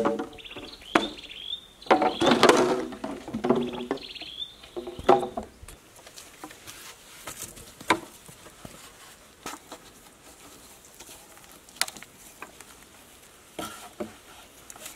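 Hollow green bamboo poles clattering and knocking together as they are dropped and laid down, several ringing clonks in the first five seconds, then only an occasional light knock. Birds chirp through the first few seconds.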